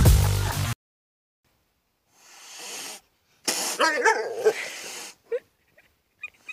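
Dance music cuts off suddenly under a second in. After a pause, a cat gives a raspy call with wavering pitch about halfway through, followed by a short chirp.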